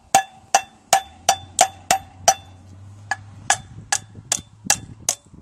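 Hammer striking the universal-joint yoke of a propeller shaft in a steady run of blows, between two and three a second, each with a short metallic ring, driving the yoke off the shaft.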